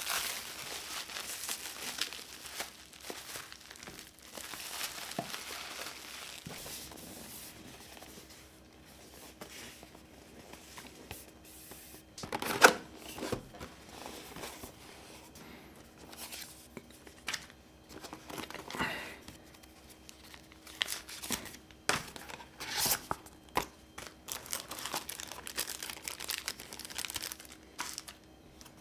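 Plastic bubble wrap crinkling and rustling as it is pulled off a lens box, then the cardboard box handled and opened: flaps folding, card sliding and paper rustling, with short taps, one sharp knock near the middle standing out.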